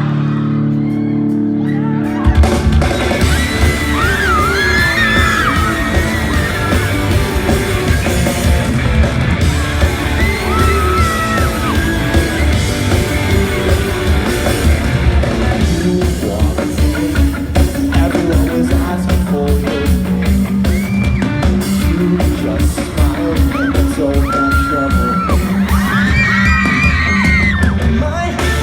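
Live pop-punk rock band playing in a large hall. Held chords open the song, then about two seconds in the full band comes in with drums and electric guitars, and high screams and yells from the crowd rise over the music.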